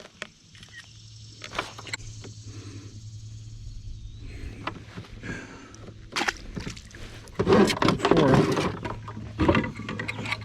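Scattered knocks and clicks of gear being handled in a kayak, with a louder stretch of handling noise about seven and a half seconds in.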